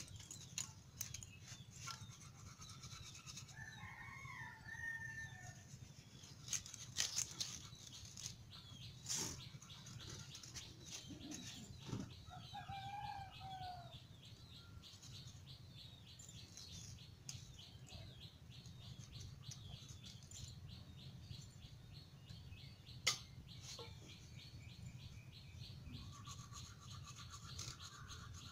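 Hilsa fish being scraped and cut against a boti blade: many small clicks and, in the second half, a rapid run of fine scraping ticks, with one sharp click about two-thirds through. A bird calls twice in the background, early on and again before the middle.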